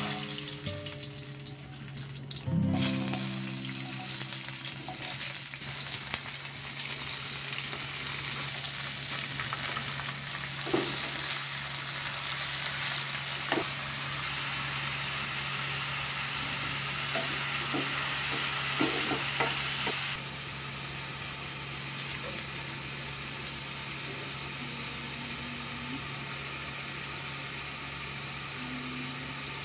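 Hot oil sizzling and spattering in a steel kadhai as cashews, then onions, tomatoes and green chillies stir-fry, with a wooden spoon stirring and a few knocks against the pan. The sizzle turns quieter about twenty seconds in.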